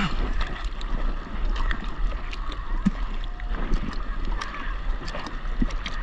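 Small waves lapping and sloshing against a floating surfboard, with many small sharp splashes and drips close by. A low steady rumble of wind on the microphone runs underneath.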